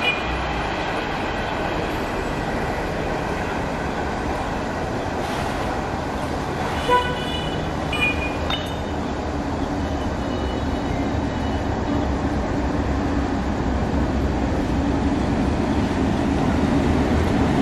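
DF4B diesel-electric locomotive hauling a freight train approaches, its diesel engine's rumble growing steadily louder over the second half. Two brief horn toots sound about seven and eight seconds in.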